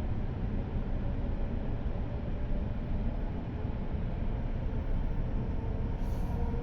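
Hokuriku Shinkansen bullet train running, heard from inside the passenger cabin as it pulls away from the station: a steady low rumble of wheels on the track with a faint whine over it. A brief high hiss comes near the end.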